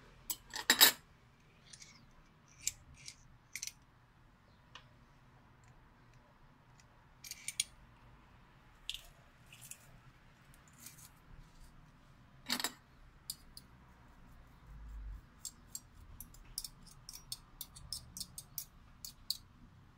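A metal spoon clinking against a glass bowl and a ceramic spoon rest: scattered sharp clicks and taps, loudest about a second in and again about halfway through, with a run of quick light ticks near the end.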